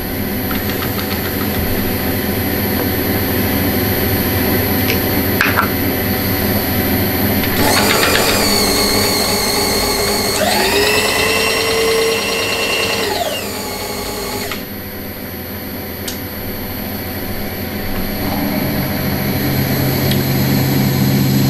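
Milling machine spindle running a quarter-inch twist drill down into a metal workpiece, a steady machine hum with the drill cutting. A high whine rises in and then fades out again in the middle.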